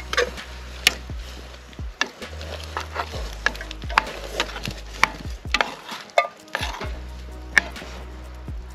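Spoon stirring in a cooking pot, with a series of sharp metallic clinks and knocks, over steady background music.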